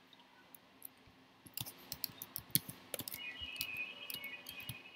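Typing on a computer keyboard: a run of irregular key clicks starting about a second and a half in.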